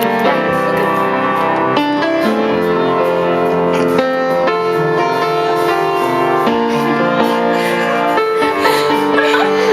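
Piano music playing: a melody of held notes and chords changing about once a second.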